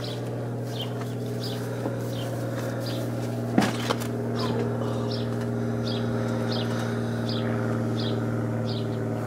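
A slingshot with Alliance file bands firing a 75-calibre lead ball: one sharp smack about three and a half seconds in, with a smaller knock just after. A bird chirps over and over, above a steady low hum.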